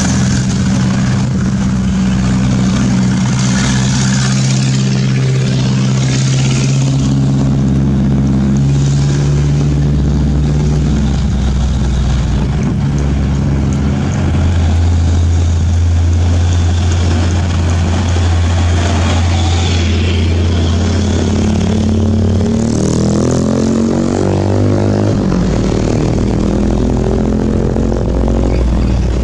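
Diesel engine of a heavily loaded Hino 500 truck labouring uphill as it comes up close, a steady low hum whose pitch shifts in steps several times. Motorcycle and another truck engine are heard as well, with rising engine notes near the end.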